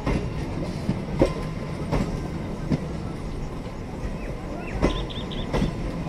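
Passenger train coaches rolling past, with a steady rumble and sharp wheel clacks over the rail joints about once a second.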